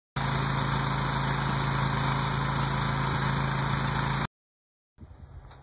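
Engine running steadily with a low hum under an even hiss as a pickup-mounted boom sprayer sprays. It cuts off abruptly about four seconds in, and a much quieter background follows a moment later.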